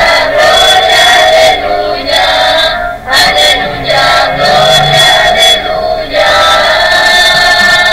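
A group of voices singing a hymn together, amplified through a loudspeaker and loud, in sung phrases of a second or two with short breaks between them.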